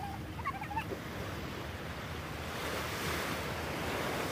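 Small waves washing in over a sand beach and breaking against rocks at the shoreline, the surf swelling louder in the second half, with a low rumble of wind on the microphone.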